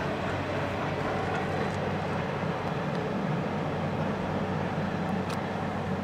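CN continuous welded rail freight train rolling past, a steady rumbling noise with a low hum.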